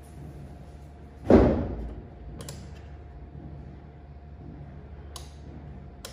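A loud dull thud about a second in, then three sharp clicks spread through the rest as an electric bug zapper's switch turns its UV lamps on and off, over a faint steady hum.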